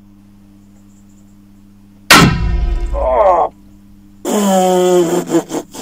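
A Husqvarna Model 45 carbine in .45-70 fires once about two seconds in: a sudden, very loud shot with a ringing tail. A second loud ringing sound, falling in pitch, follows about four seconds in. A faint steady low hum runs underneath.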